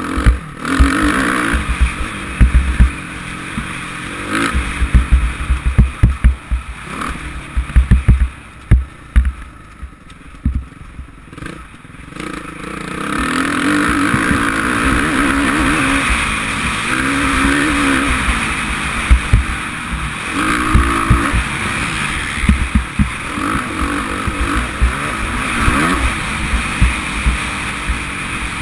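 Suzuki RM-Z450 single-cylinder four-stroke motocross engine under a rider, heard from a helmet camera, rising and falling in pitch with each burst of throttle, running harder from about halfway. Wind and track bumps thump on the microphone, mostly in the first half.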